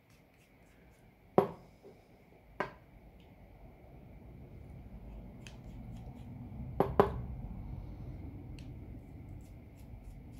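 A precision Torx screwdriver and a plastic smartwatch case being handled as the back-cover screws are undone: a few sharp small clicks, two of them close together about seven seconds in. A low rumble grows louder from about halfway.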